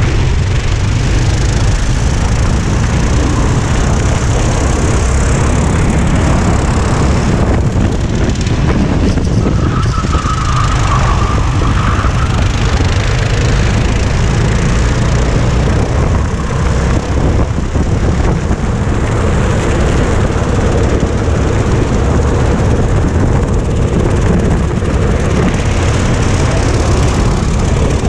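Race kart engine running at speed under steady throttle, heard from the kart itself with heavy wind rumble on the onboard microphone. A brief high squeal comes about ten seconds in.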